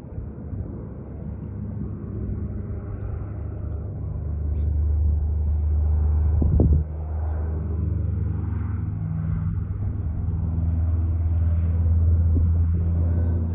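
Twin turboprop engines of a Canadair CL-415 Super Scooper water bomber droning as it flies in low and close, growing louder about four seconds in and staying strong as it passes near overhead. A brief knock sounds about halfway through.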